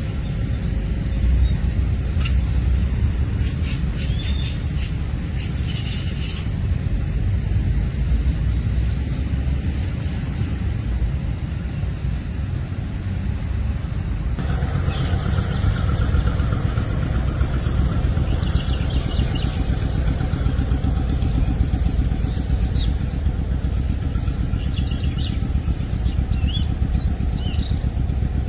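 Riverboat's diesel engines running, a steady low rumble, with faint higher chirps and calls coming in about halfway through.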